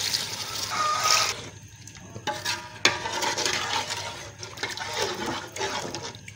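Water pouring in a stream into a metal cooking pot of chicken and masala, splashing, until about a second and a half in. After that a metal ladle stirs the watery curry, with scraping and knocking against the pot. This is the water being added for chicken pulao.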